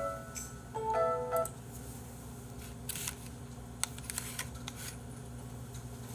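Soft background music, a few held notes, stops about a second and a half in. A low steady hum follows, with a few faint light clicks from wooden chopsticks being handled over plastic food containers.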